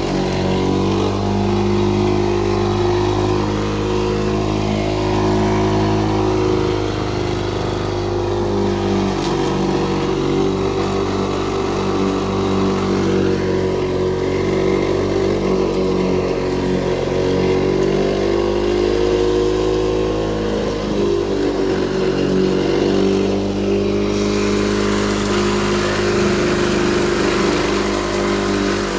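1979 Lawn-Boy R7268 push mower's two-stroke F-100 engine running while cutting grass, a steady note whose pitch dips slightly now and then.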